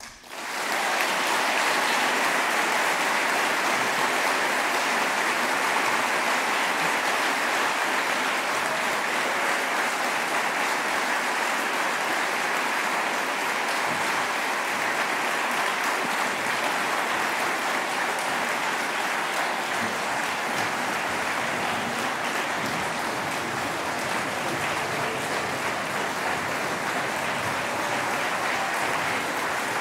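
Audience applauding steadily. The applause rises to full strength within about a second and eases off slightly in the second half.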